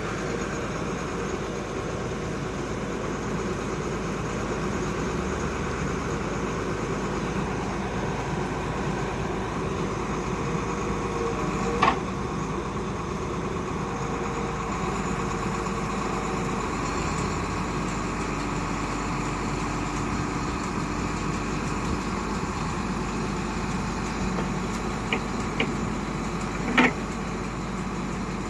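Diamond core drilling rig running steadily, with a sharp metallic knock about midway and a few more near the end.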